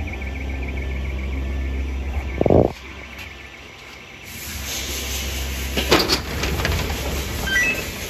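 Handling noise on the phone's microphone: a knock about two and a half seconds in, then rustling and a few sharp clicks around six seconds, over a steady low hum. A faint wavering tone from the intruder alarm's self-actuating bell (SAB), sounding under test, runs through the first half.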